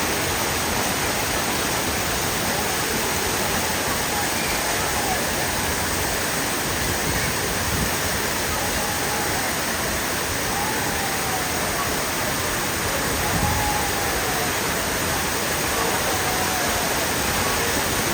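Waterfall rushing steadily, with faint distant voices of people calling out over it.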